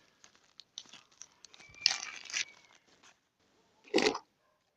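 A parcel being opened by hand: packaging crinkling and tearing, with small clicks of handling, and a short louder rustle about four seconds in.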